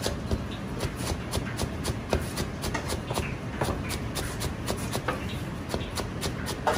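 Chinese cleaver rapidly slicing green onions on a plastic cutting board: a quick, even rhythm of sharp knife knocks against the board.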